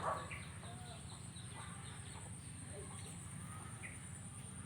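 Cicadas calling in a steady high-pitched drone, with a few short, faint chicken and bird calls over it.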